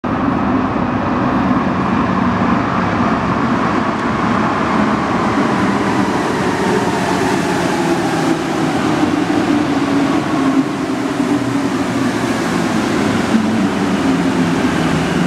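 Alstom NS-16 rubber-tyred metro train running into an underground station: a loud, steady rolling rumble with a few whining tones through it that drift lower in pitch as the train slows.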